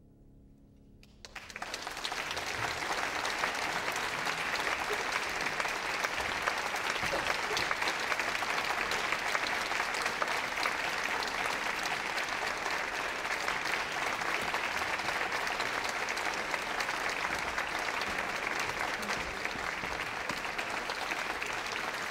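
The last piano chord fades away, and about a second in an audience starts applauding, which then goes on steadily.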